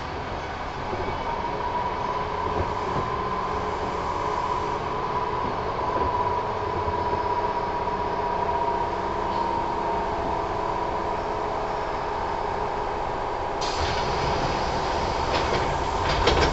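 Interior running sound of a Kintetsu 1000 series electric train slowing for a station stop: wheel and rail rumble under a steady whine that slowly falls in pitch as the train loses speed. About three-quarters in, a harsher hiss with crackles joins as the train nears a halt.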